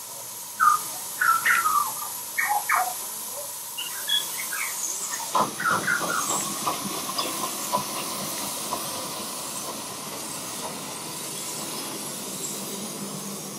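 Live-steam scale model steam locomotive hissing, with a few short squeaks in the first seconds. About five seconds in it starts to chuff as it pulls away, the exhaust beats coming several a second and growing fainter.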